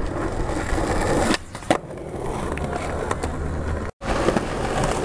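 Skateboard wheels rolling on asphalt, with one sharp clack of a board about a second and a half in. The sound cuts out briefly near four seconds, then the steady rolling of skateboard wheels on the street resumes.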